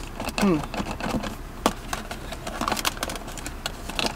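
Plastic cup-holder trim in a car's centre console being pressed and tapped by hand: a run of light, irregular plastic clicks and taps.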